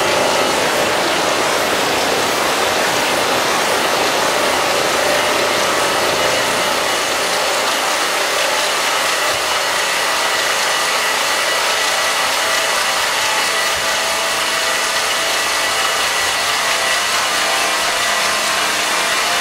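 Eurorack modular synthesizer feedback loop through a chain of Make Noise echo modules, giving a dense, steady, hissing wash of sound with a few faint held tones inside it.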